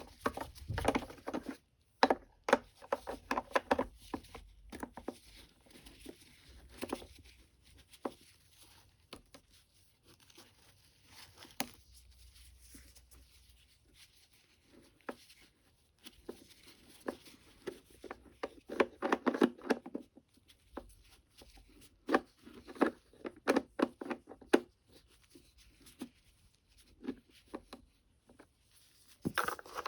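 Clicks, taps and rustling of gloved hands handling and taking apart the plastic housing of an Oreck XL9100 upright vacuum, in irregular bursts with quieter pauses between.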